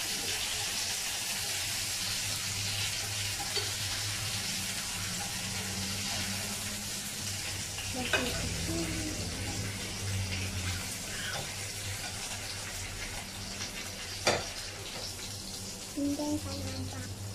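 Marinated lamb chops sizzling in a frying pan as the pieces are turned and lifted out, with a low hum underneath. Two sharp knocks come about six seconds apart.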